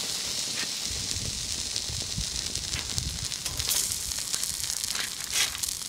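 Chicken thighs sizzling on a wire grill over a wood fire, their fat dripping into the flames: a steady sizzle with scattered crackles.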